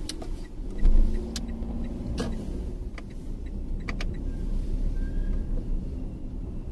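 Car driving along a street, heard from inside the cabin: a steady low rumble of road and engine noise, with a few sharp clicks at irregular moments and a heavier thump about a second in.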